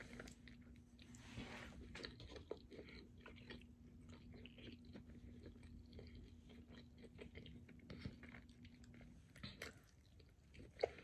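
Faint chewing of food: soft, irregular crunches and wet mouth clicks, with one sharper click near the end, over a faint steady hum.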